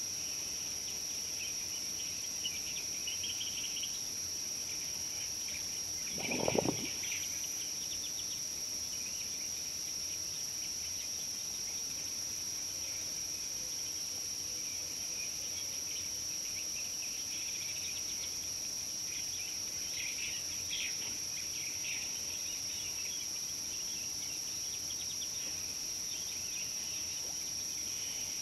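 A steady, high-pitched drone of insects runs throughout, with scattered short bird chirps over it, thicker near the start and again about two-thirds of the way through. About six seconds in, a brief low rush of noise stands out as the loudest moment.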